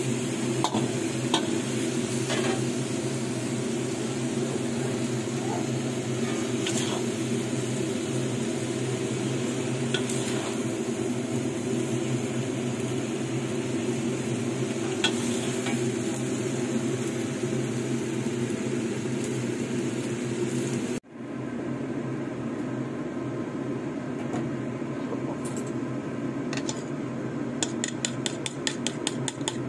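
Noodles, cabbage and meat sizzling in a wok as they are stirred and tossed with a utensil, with occasional scrapes and clicks, over a steady hum. Near the end, a fork beats eggs against a bowl in a quick, even run of clicks.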